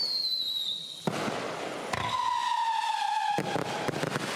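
Whistling firework cake (Midnight Howling) going off: a high whistle sliding slightly down in pitch ends in a bang about a second in, then a lower whistle, also sliding slightly down, ends in another bang about three and a half seconds in.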